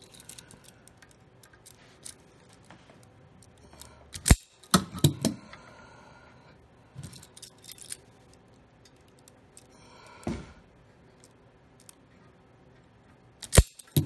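Spring-loaded wire stripper clicking and snapping as its jaws close on and pull the insulation off cut blower-motor leads: a handful of sharp, separate clicks, the loudest near the end, with light handling of the wires between.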